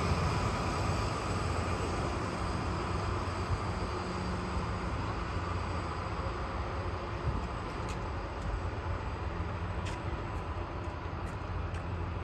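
Narrow-gauge diesel-hydraulic locomotive's engine running with a steady low hum that slowly eases off, with a few faint clicks near the end.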